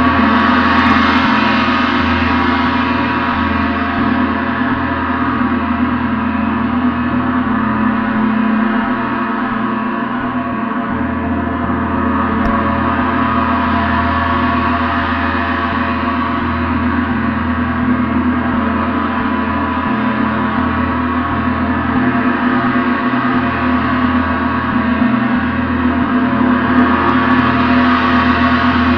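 Gong played continuously, a dense, sustained wash of many ringing overtones. It swells brighter about a second in and again near the end.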